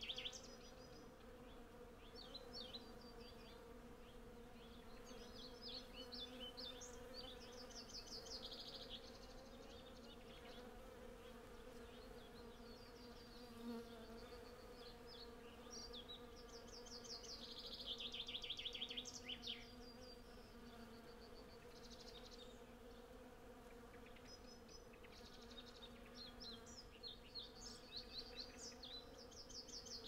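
Hundreds of honey bees foraging on a blossoming cherry tree, heard as a faint, steady buzz. Birds sing over it, with a falling trill a little past halfway as the loudest phrase.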